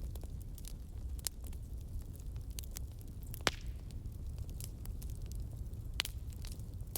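Wood fire crackling: scattered sharp pops and snaps over a steady low rumble, with two louder pops about three and a half and six seconds in.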